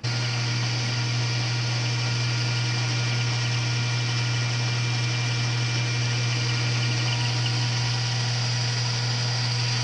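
Metal lathe running steadily under power, with a strong low hum and a whirring haze, as brass stock is turned down to size.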